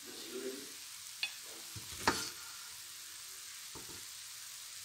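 A steel spoon stirring cooked chana pulao in a steel pot, with a soft steady hiss and a few sharp metal-on-metal clinks of spoon against pot, the loudest about two seconds in.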